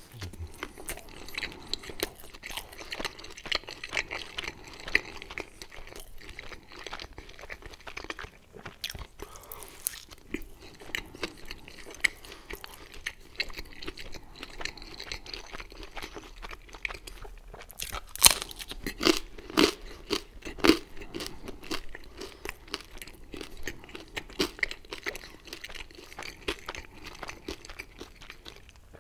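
Close-miked chewing and biting of pizza, with the crust crunching and crackling in many quick small clicks. The loudest crunches come in a cluster about two-thirds of the way through.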